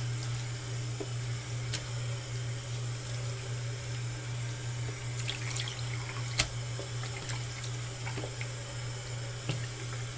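Tap water running into a sink as a wig is rinsed under it to get the fabric softener out. A few light knocks sound over the flow, the sharpest about six seconds in.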